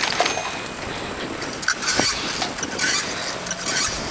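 Bicycle being ridden over a paved road, with a few light metallic clinks and rattles from the bike over the steady noise of riding.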